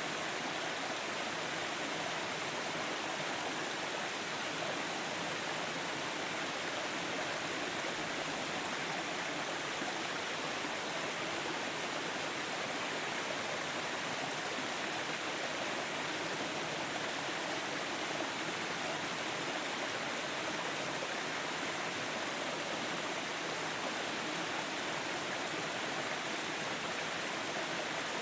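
Stream water rushing and splashing over rocks, a steady, even hiss of running water that keeps up without any change.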